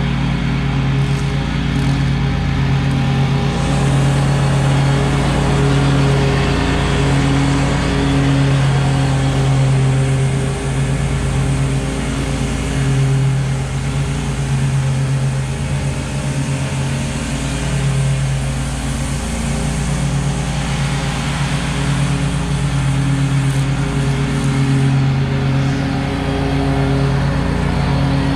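Red stand-on zero-turn mower's engine running steadily while mowing, with slight dips in pitch now and then.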